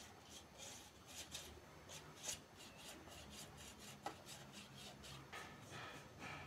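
Faint, repeated strokes of a paintbrush dragged over popsicle-stick wood, a soft brushing rub about three times a second.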